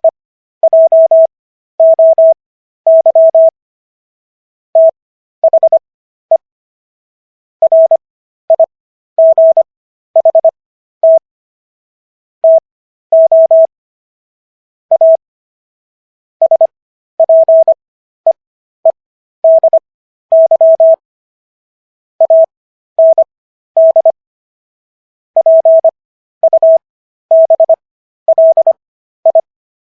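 Morse code sent as a single steady beep, keyed on and off in short dits and longer dahs grouped into letters and words. It runs at 15 words per minute with Farnsworth spacing: each character is sent at 25 words per minute, with lengthened silent gaps between characters and words.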